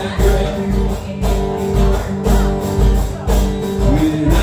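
Acoustic guitar strumming chords over a steady drum beat of about two low thumps a second, an instrumental bar between sung lines of a live song.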